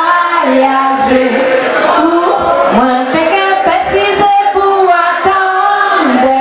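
A woman singing into a hand-held microphone, her voice amplified, with long held notes that slide from one pitch to the next.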